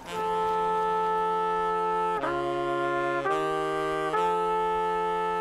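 Brass and saxophone ensemble (trumpet, saxophone, trombone and tuba) playing long held chords in harmony, with the chord changing about two seconds in, again a second later, and once more near the end.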